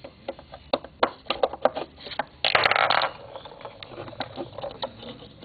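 Handling noise around a coil tattoo machine: scattered sharp clicks and knocks, with a loud burst of rough noise lasting about half a second near the middle.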